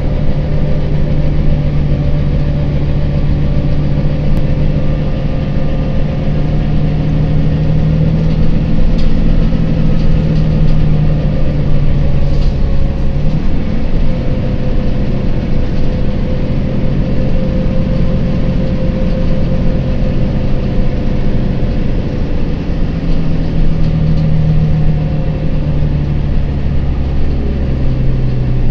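Volvo B9TL double-decker bus's six-cylinder diesel engine running steadily under way, heard from inside the upper deck, its pitch slowly rising and falling a little.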